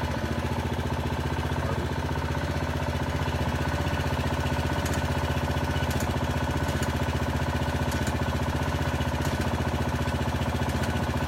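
Small engine of a hydraulic pump unit running steadily, powering the jacks that lift a settled brick veneer wall on its piers, with a few faint clicks partway through.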